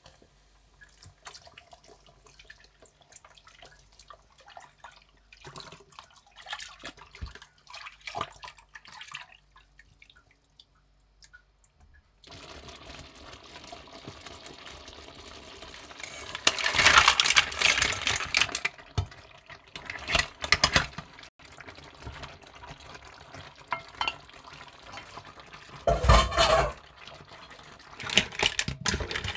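Seafood cream sauce bubbling in a non-stick frying pan as cream is poured in, then a metal slotted spatula stirring and scraping the pan, with several loud bouts of clattering as cooked mussels in their shells are tipped in and stirred through the sauce.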